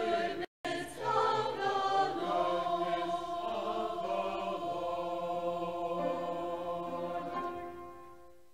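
A mixed men's and women's choir singing a hymn, closing on a long held chord that fades away near the end. The sound cuts out briefly about half a second in.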